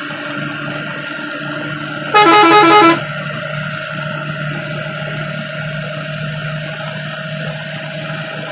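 A bus horn sounds for about a second, about two seconds in, its pitch jumping quickly between notes, as the bus overtakes a truck. Under it the bus's engine drones steadily, heard from inside the cab.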